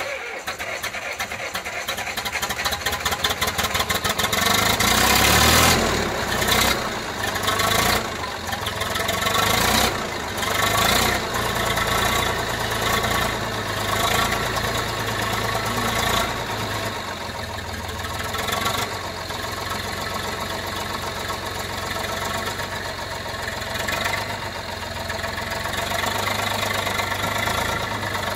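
Zetor tractor's diesel engine cold-starting: a fast, even chatter grows louder, the engine catches about five seconds in and runs unevenly with several surges, then settles into a steady idle for the last ten seconds or so.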